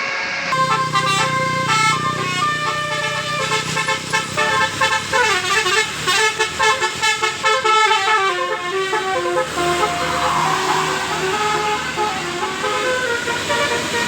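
Basuri telolet multi-tone musical air horn on a bus, playing a fast melody of quickly stepping notes that starts about half a second in, over the low steady hum of the bus engine.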